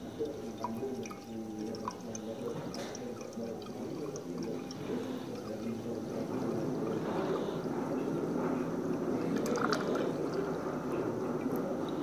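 Liquid pouring in a thin stream from the spout of a small Yixing clay teapot into a glass pitcher, growing louder in the second half as the pour goes on.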